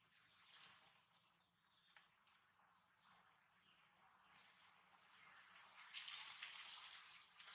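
An insect chirping steadily in a high, regular pulse of about five chirps a second. About six seconds in, a louder high hiss joins it.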